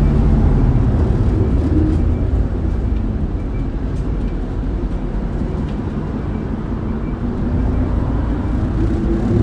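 Inside an Isuzu Erga city bus (2DG-LV290N2) under way: a steady diesel engine and road rumble that eases a little midway, then a rising engine note near the end.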